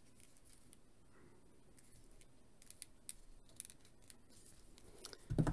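Faint small clicks of a plastic action figure being handled while its arm is worked into position, with one louder thump near the end.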